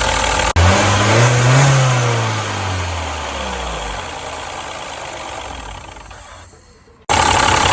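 Turbocharged Mini engine, running without misfire on a new ignition coil, revved once. The pitch rises for about a second, then falls away slowly as the sound dies down over several seconds.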